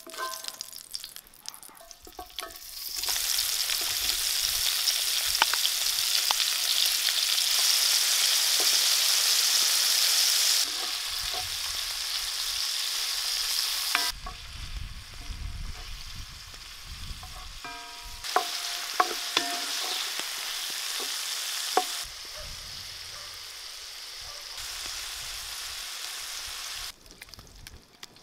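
Lard and diced smoked bacon sizzling as they fry in a large pan, stirred with a wooden spoon that clicks and knocks against the pan now and then. The sizzle is loudest in the first half, comes in stretches of differing loudness, and drops away near the end.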